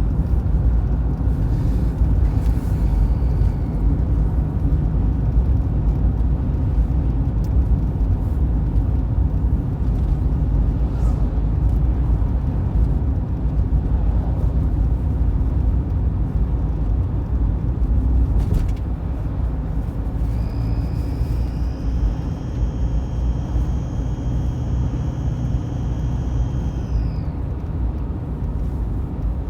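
Mitsubishi Pajero IV 3.2 turbodiesel on the move, with a steady low rumble of engine and road noise. About two-thirds of the way through, a high thin whistle comes in, holds for several seconds, then slides down and fades. It is the unexplained whistle or buzz from under the bonnet that is heard only while driving, never when standing.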